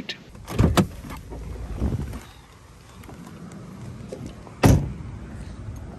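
Minivan door being opened with a couple of sharp latch clicks, some shuffling, then the door shut with a single loud thud a little before five seconds in.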